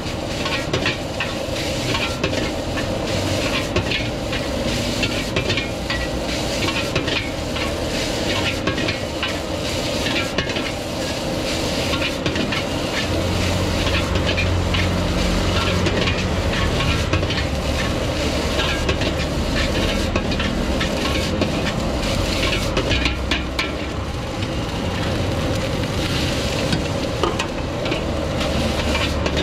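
Fried rice being stir-fried in a wok: a metal ladle repeatedly scraping and clinking against the wok over steady sizzling. Under it the gas wok burner's rush swells louder for several seconds from about the middle, and again near the end.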